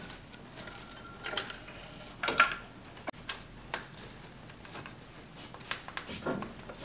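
Scattered light metallic clicks and clinks from hands working at the valve cover and rocker arms of an LS V8, checking the rockers for looseness.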